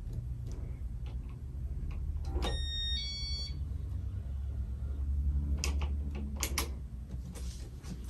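Casablanca Nouvelle ceiling fan with its 33mm XLP2100 motor running, a steady low whir of motor and walnut blades. A short electronic beep in two notes comes about two and a half seconds in, and a few sharp clicks follow later.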